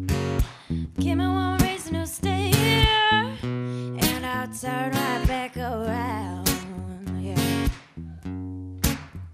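Live acoustic music: a strummed acoustic guitar over a deep bass line, with a woman singing long wavering notes with vibrato in two phrases.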